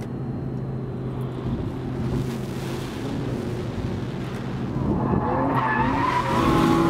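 2014 Audi R8 V10 Plus's 5.2-litre V10 running on a race track as the car corners, its note steady at first, then rising and growing louder from about five seconds in as the car comes past.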